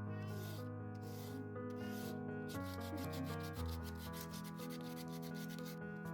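Background music of sustained chords that change every second or two, over a dry rubbing of sandpaper worked across hardened two-part metal filler.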